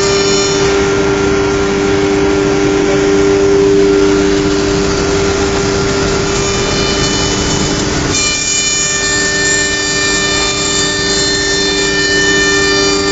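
Philicam F4 1325 CNC router running, its spindle giving a steady high whine over a rushing noise. The higher overtones change and the sound dips briefly about eight seconds in.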